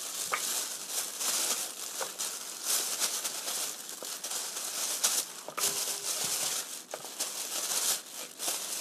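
Thin plastic bag crinkling and rustling in irregular bursts as a hand reaches in and handles the floured zucchini slices inside it.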